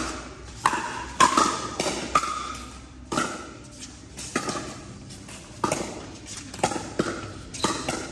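Pickleball paddles striking a hollow plastic pickleball, with ball bounces on the court: a dozen or so sharp pops at uneven spacing, several with a brief ring.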